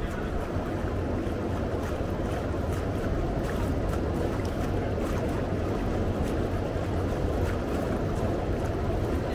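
Tour boat's engine running steadily on the river, a constant low drone.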